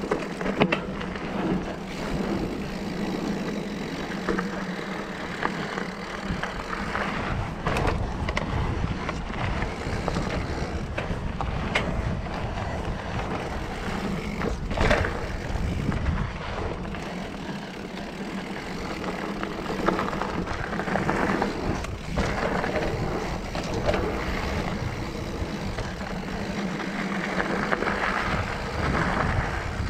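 Mountain bike rolling fast over dirt singletrack, heard from a camera on the bike: a steady rush of knobby tyres on dirt and wind, rumbling louder and softer. A few sharp knocks and rattles come as the bike hits bumps.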